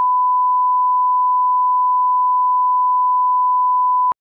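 A single steady, loud sine tone at about 1 kHz, with no other sound, that cuts off abruptly about four seconds in.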